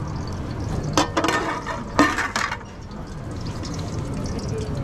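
Two sharp clanks of cookware about a second apart, each followed by a short clattering rattle, over a steady low hum.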